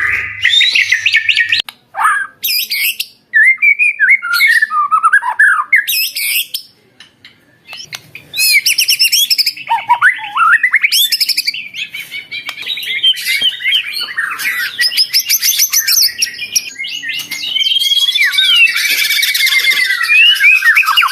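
White-rumped shama (murai batu) singing a loud, fast, varied song of rapid trills, whistles and quick up-and-down pitch glides, with a short pause about seven seconds in. This is the hard, continuous 'gacor' singing used to provoke other shamas into answering.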